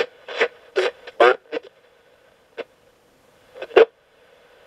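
Coopbox 26 ghost box radio sweeping the FM band in squelch mode: a rapid string of short radio fragments, each chopped off as it jumps between stations. It then goes mostly muted, with two isolated blips, and faint static comes up near the end.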